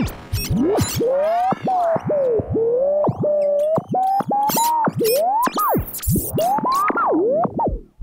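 Radio being tuned across the band: a single whistling tone slides up and down in pitch as the dial moves, the whistle of stations beating against each other. It is broken by sharp clicks and a few sudden, brief drop-outs.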